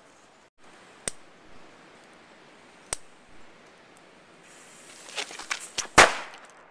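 Small firework going off: a hiss starts, then a quick string of sharp pops and one loud bang about six seconds in. Two single sharp clicks come earlier.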